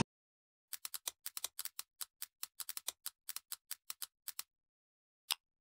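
Typing on a computer keyboard: about two dozen quick keystrokes over roughly three and a half seconds, then a single keystroke about a second later.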